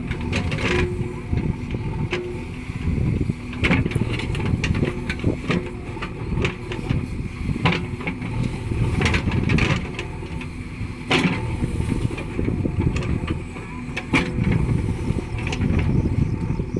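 JCB 3DX backhoe loader's diesel engine running steadily while it works, with irregular sharp knocks and clanks from the machine every second or two.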